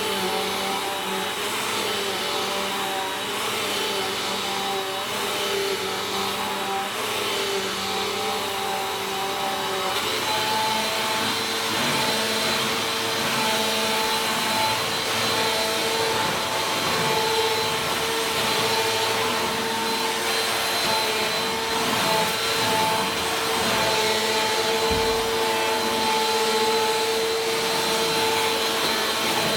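Bissell vacuum cleaner running steadily while vacuuming, a continuous motor whine with a hum; about ten seconds in its tone steps slightly higher and a little louder.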